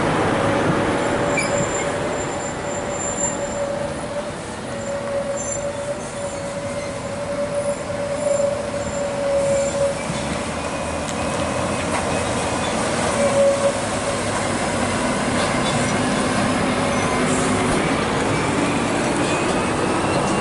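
Heavy Scania tractor-trailer trucks, each hauling a dismantled excavator section, running toward the camera, their diesel engines and tyres making a loud continuous noise. A steady high whine runs over it and fades about two-thirds of the way through.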